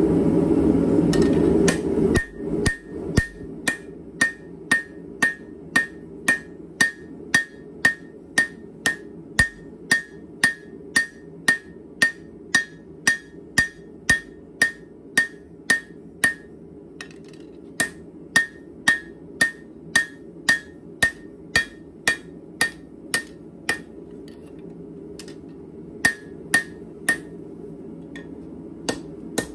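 Hand hammer striking red-hot leaf-spring steel on an anvil while a knife blade is forged, about two ringing blows a second. There is a pause near the end, then a few more blows. A steady low roar runs underneath and is loudest in the first two seconds.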